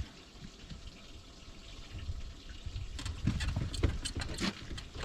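Water lapping and sloshing, with a few sharp clicks and knocks between about three and four and a half seconds in.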